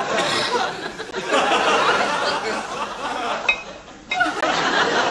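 Studio audience laughing, easing off about three and a half seconds in, then swelling again.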